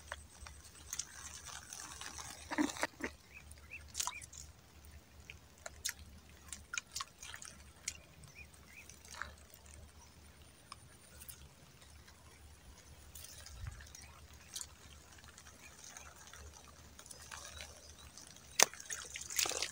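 Quiet swamp-side ambience: scattered faint drips and small clicks of water over a soft steady high hiss, with a sharper click near the end.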